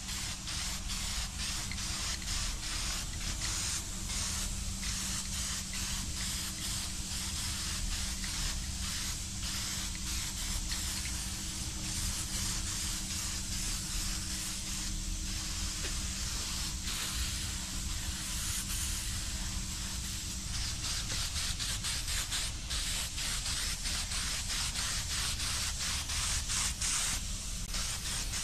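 Aerosol spray-paint can hissing, in quick repeated bursts mixed with a few longer sprays, as paint goes onto a steel bulldozer equalizer bar.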